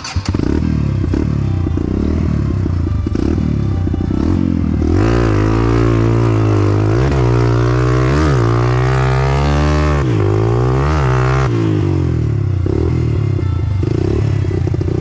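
Enduro dirt bike engine running while riding a muddy, rutted trail, steady at first, then revving up and dropping back several times through the middle as the throttle is worked, before settling lower near the end.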